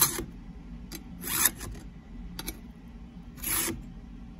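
Round chainsaw file rasping across a cutter tooth of a Stihl MS 290 Farm Boss saw chain during hand sharpening: three push strokes about one and a half to two seconds apart, with light clicks between them.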